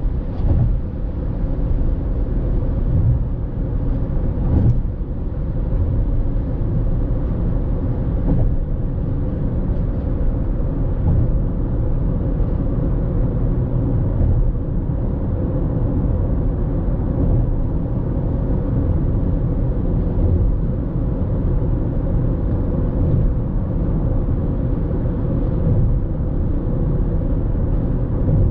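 Car driving at highway speed: a steady rumble of tyre and engine noise with a faint steady hum. A brief knock comes about four and a half seconds in.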